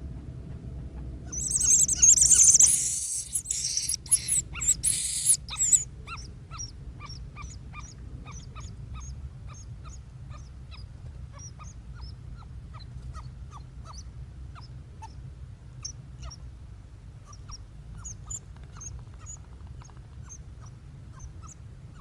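A loud burst of high hissing noise for a few seconds, then a long run of short, high bird chirps, about two or three a second.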